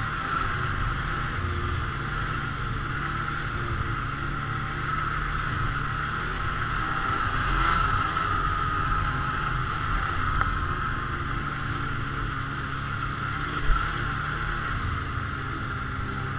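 Polaris snowmobile running steadily at trail speed, its engine and track heard close from the rider's seat. A single sharp knock about three-quarters of the way through.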